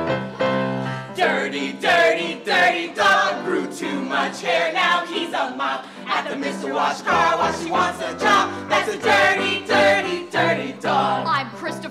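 A group of voices singing an upbeat song together over a musical accompaniment.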